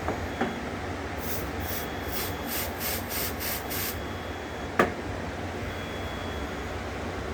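Canned smoke-detector test aerosol sprayed in about eight short hissing spurts over a few seconds, aimed at an Edwards 6250 ionization smoke detector, over a steady fan hum. A sharp knock comes just before the spraying and a louder one about a second after it.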